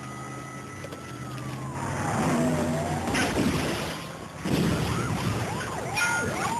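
Police car siren: a slow wail falling in pitch, then a fast up-and-down yelp. A sharp crack comes about three seconds in, and a loud noisy burst about four and a half seconds in.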